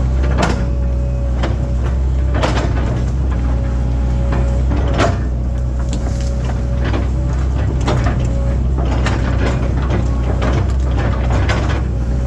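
Link-Belt excavator's diesel engine running steadily with a constant hydraulic whine, broken by irregular knocks and clanks as the machine digs and pulls stumps.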